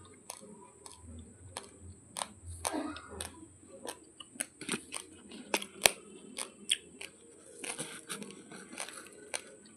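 Raw basmati rice grains crunching between the teeth as they are chewed: sharp, separate cracks about twice a second, the loudest a little before the middle. Near the end there is a rougher grainy rustle.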